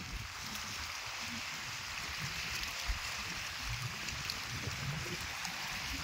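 Small wind-driven waves lapping and breaking against the rocks of a reservoir shore, an even wash of water noise. Strong wind buffets the microphone in irregular low rumbles.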